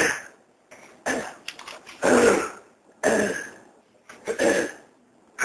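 A man's loud throat clearing: a run of harsh hacks about one a second, five in a row.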